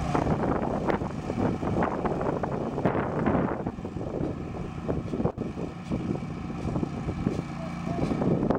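Chassis of a 15-inch-gauge, two-cylinder 4-12-2 steam locomotive running on compressed air as it rolls along the track: a busy, irregular clatter of exhaust and running gear, loudest in the first few seconds and easing as it moves away.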